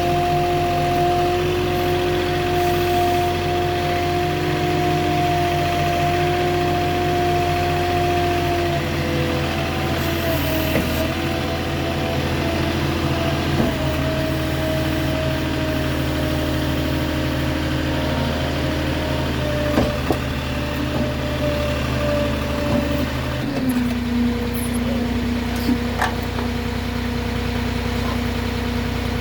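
Moffett truck-mounted forklift's engine running steadily, its pitch stepping down a few times as the machine works. A few short knocks sound in the second half.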